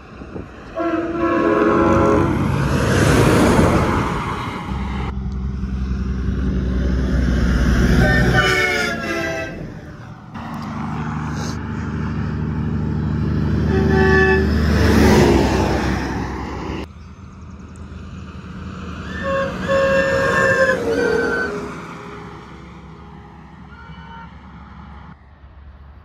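Semi trucks fitted with air train horns blasting multi-note chords as they pass, about four separate blasts, several dropping in pitch as each truck goes by. Underneath is the diesel drone and tyre rush of the passing trucks, broken by abrupt cuts between clips.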